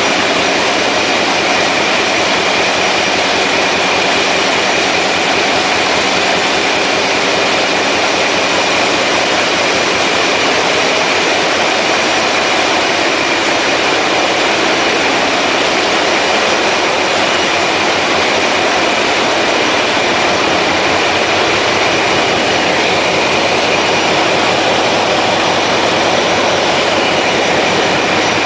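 Wärtsilä marine diesel engines running in a ship's engine room: a loud, steady machinery din with a fast, even pulse low down and a steady high whine on top.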